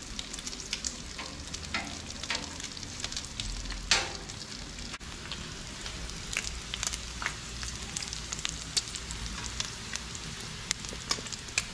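Bacon strips frying on a Blackstone flat-top griddle: a steady sizzle with frequent sharp crackles of spattering fat, and one louder crack about four seconds in.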